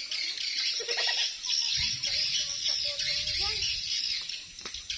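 Steady, high-pitched drone of forest insects such as cicadas, with faint voices underneath. A low rumble joins about two seconds in.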